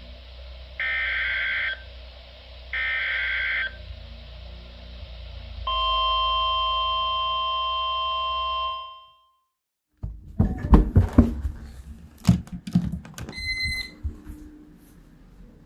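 Weather radio receiving an Emergency Alert System message: two harsh digital data bursts of the SAME header, about a second each and a second apart, then a steady single-pitch warning alarm tone of about three seconds over a low hum. After a second of silence come irregular clicks and knocks with one short beep.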